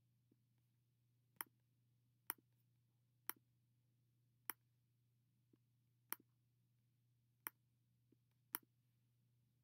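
Computer mouse clicking: about seven sharp single clicks at irregular intervals, roughly a second apart, over a faint steady low hum.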